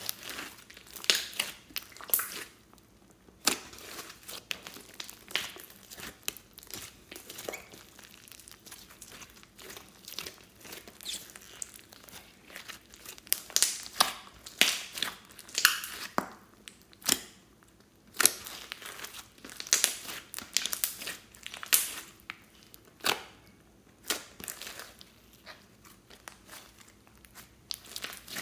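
Hands squeezing, pressing and folding a large mass of slime mixed with clay and floam beads, giving irregular sticky crackling and popping sounds.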